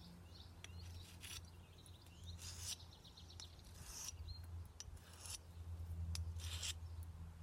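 Sheath knife blade stroked along a water-soaked whetstone to sharpen its edge: about six short scraping strokes, spaced a second or so apart.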